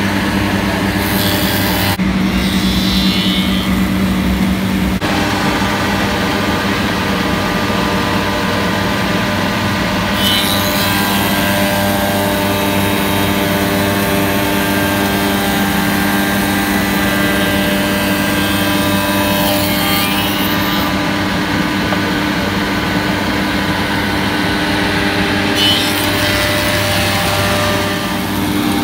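Soukup Crafter angular CNC woodworking machining center running: a steady whine-and-drone of many tones from its spindle motors and cutterheads. A rushing hiss comes and goes over it, longest from about ten to twenty seconds in, as window-sash pieces are fed through for tenoning and profiling.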